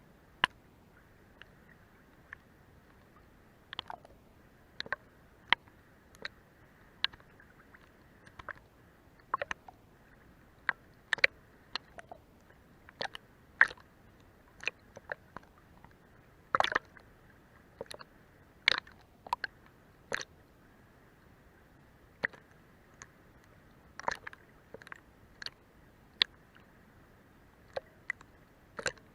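Seawater lapping against a boat's hull: irregular small slaps and clicks, one or two a second, over a faint steady hiss.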